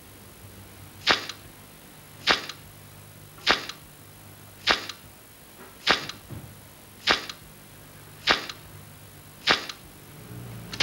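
Camera shutter clicks, eight of them at an even pace of about one every 1.2 seconds, over a faint steady low drone.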